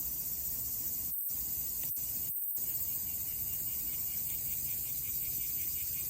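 Steady high hiss that cuts out briefly twice in the first few seconds, with crickets chirping faintly in a fast even rhythm from about four seconds in.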